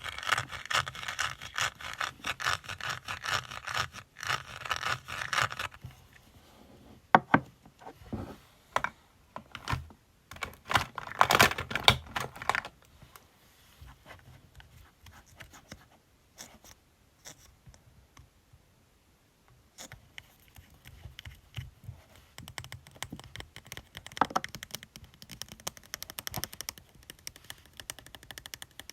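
Fingernails tapping and scratching on makeup cosmetics packaging: fast runs of clicks and scratches, then scattered single taps and a short scratchy burst, a quiet few seconds, and fast tapping again near the end.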